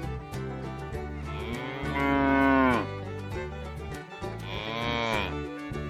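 Cow mooing twice: a long moo starting about a second in and a shorter one about four and a half seconds in, each falling in pitch as it ends. Background music with a steady beat runs underneath.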